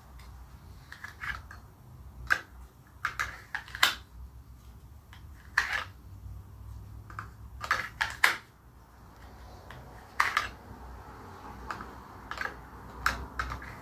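A Kydex knife sheath being handled on a belt: irregular sharp plastic clicks and snaps, several in quick pairs, as the rigid sheath and the knife in it are worked.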